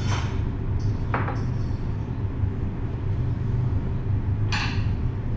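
Steady low room hum, with a few brief light clinks of kitchenware about a second in and near the end.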